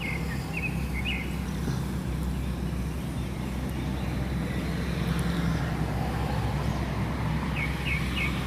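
Tugboat's diesel engine running with a steady low drone as it pushes upstream against the current. Short bird chirps come near the start and again near the end.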